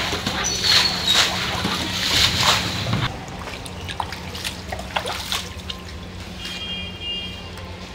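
Shallow floodwater scooped with plastic bowls and flung out of a doorway: a quick run of splashes about twice a second for the first three seconds, then quieter sloshing and trickling with only an occasional splash.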